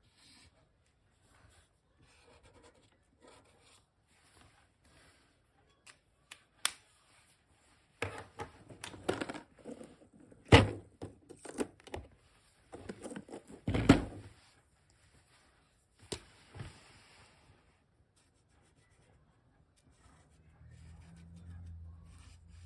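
Plastic markers clattering and knocking against each other and their plastic storage box as one is picked out, with two sharp knocks about ten and fourteen seconds in. A marker tip scratches lightly on paper at the start and rubs steadily across the paper near the end.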